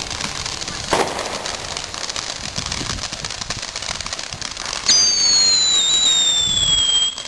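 Ground fountain fireworks hissing and crackling as they spray sparks, with a sharp pop about a second in. About five seconds in, a loud, shrill firework whistle starts, sinks slightly in pitch for about two seconds, then cuts off suddenly.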